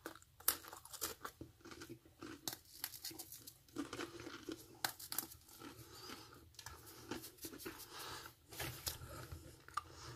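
Dry MRE crackers being crumbled between the fingers: a faint, irregular crackle of small snaps and crunches.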